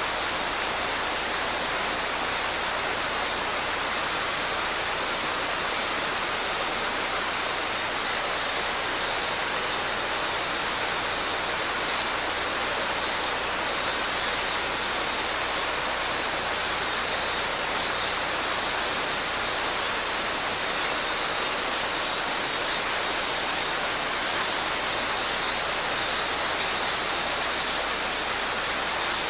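Mountain stream rushing steadily over rocks, with robust cicadas (minmin-zemi) singing in pulsing phrases above it, stronger in the second half.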